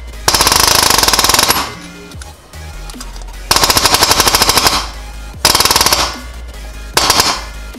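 Pneumatic air hammer driving a pin punch, knocking a pin through a short shifter into the transmission shift linkage. It runs in four bursts of rapid impacts, each about a second long, with short pauses between.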